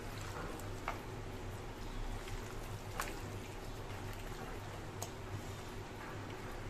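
Hands mixing mutton pieces into a thick yogurt-and-spice marinade in a bowl: soft wet squishing, with a few sharp clicks about one, three and five seconds in, over a steady low hum.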